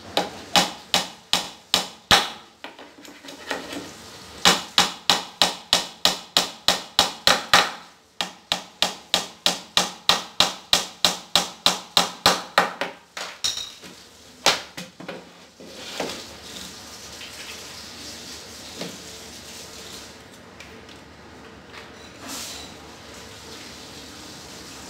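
Hammer driving nails into a laminated wood-grain board, in rapid even runs of about four strikes a second. The hammering stops about fifteen seconds in, followed by faint knocks of boards being handled.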